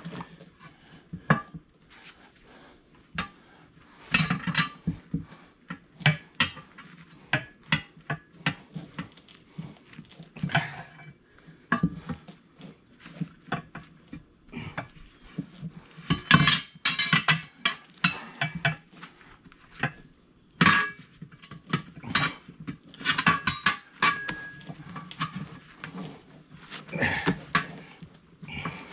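Steel tire irons and a manual tire changer's mounting bar clanking and scraping against a steel tractor wheel rim as a tire bead is levered on, in irregular clanks and clinks, some coming in quick runs.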